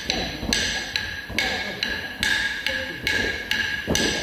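Bharatanatyam jati accompaniment: sharp, evenly spaced time-keeping strikes, about two and a half a second, each with a short ring. Dancers' bare feet stamp on the wooden floor with them.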